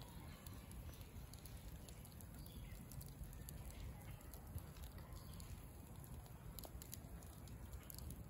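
Quiet outdoor ambience: a low steady background rumble with faint, scattered small clicks.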